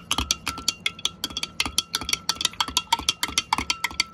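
A metal spoon stirring milk in a glass jug, clinking against the glass in a quick, steady run of several taps a second, the glass ringing faintly between strikes.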